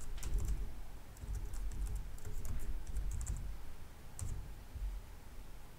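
Typing on a computer keyboard in short bursts of keystrokes, entering a formula.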